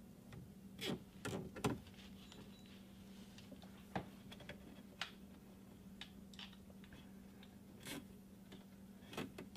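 Faint, scattered clicks and rustles of a wiring harness being handled, routed and fastened with zip ties inside a stripped car door, over a low steady hum.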